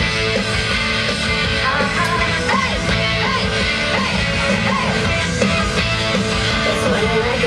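Rock music with electric guitar playing steadily, the soundtrack of a nighttime projection light show.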